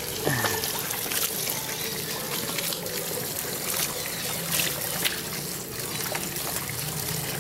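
Thin stream of water trickling from an outdoor tap into a basin, with small splashes as a puppy drinks and pushes its face into the water.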